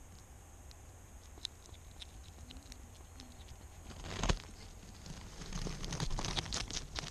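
European hedgehog moving right up against the camera at its feeding dish: faint ticks, a loud knock about four seconds in, then a quick run of clicks and rustling.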